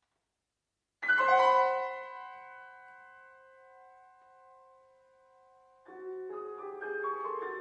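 Fazioli grand piano: after a second of silence, a loud chord is struck and left to ring, fading over about four seconds. Near the end, a quick run of short notes starts and grows louder.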